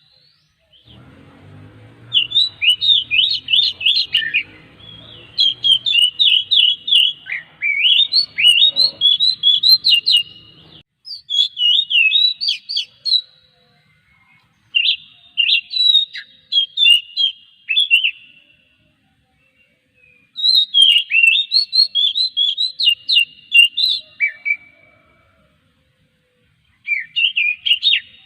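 Oriental magpie-robin (kacer) singing: bouts of rapid, varied whistled phrases a few seconds long, with short pauses between them. A faint low hum runs under the first third.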